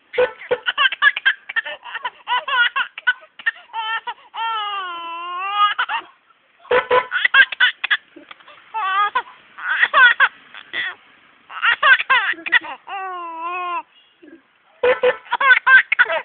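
Baby laughing in repeated bursts of giggles, broken twice by a longer wavering pitched sound, about four seconds in and again near the end.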